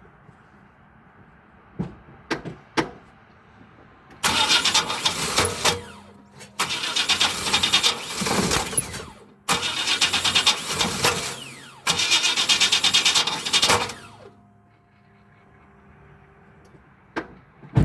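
A 2000 Chevy Express 3500 van's engine cranking hard on jumper cables without starting: four separate bursts of uneven, labouring cranking of about two seconds each, after a few sharp clicks. The cause is unknown to the owner; it followed a clunk during long cranking on a weak battery, and he suspects the starter.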